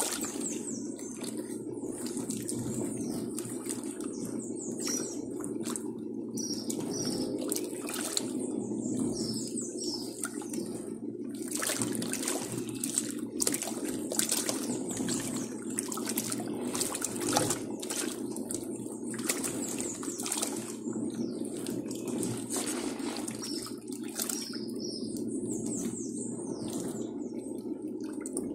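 A Dako 4 kg tanquinho washing machine running: its motor hums steadily while the fast-spinning pulsator churns clothes through soapy water, with continuous splashing and sloshing.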